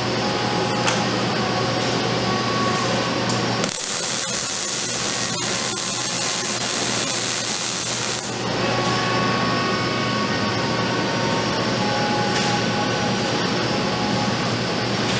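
Fanuc ARC Mate 120iL six-axis servo-driven welding robot: a steady hum with the whine of its servo motors as the arm moves, then, about four seconds in, the welding arc strikes and gives an even hiss for about four and a half seconds before cutting off, after which the hum and whine continue.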